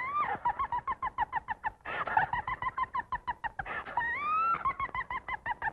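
Cartoon cackling sound effect, high-pitched and clucking: a rising whoop, then a long run of fast staccato cackles, with a second rising whoop about four seconds in followed by more cackles.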